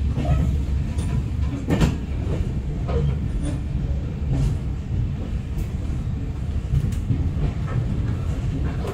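Passenger train running, heard from inside the coach: a steady low rumble with scattered clicks and knocks as the wheels pass over rail joints.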